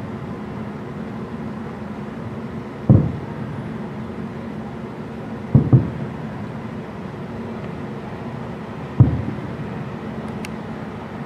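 Aerial firework shells bursting far off: dull low booms with a short echoing tail, one about three seconds in, two in quick succession near the middle, and another near the end, over a steady background rumble.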